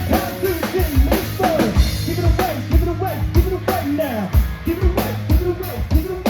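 Live rock band playing, with the drum kit's kick and snare keeping a steady beat under pitched melodic lines.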